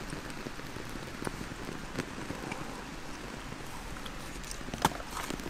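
Small fatwood flame burning, with a few sharp crackles over a steady soft hiss.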